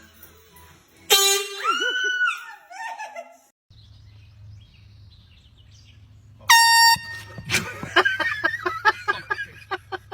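Two short air horn blasts, each setting off a startled reaction. The first, lower-pitched, comes about a second in and is followed by a rising and falling yelp. The second, higher-pitched, comes about six and a half seconds in and is followed by a thump and a string of short, rhythmic vocal outbursts.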